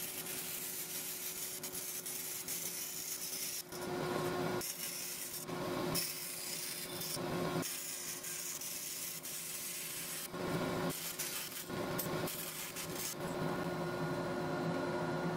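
Vertical bandsaw running with a steady hum while its blade cuts thin copper sheet into strips, the cutting noise growing louder in repeated short spells as the metal is fed through.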